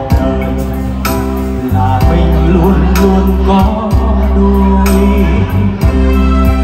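A man singing a Vietnamese song live through a microphone and PA. He is backed by an electronic keyboard that plays a steady drum beat, bass and chords.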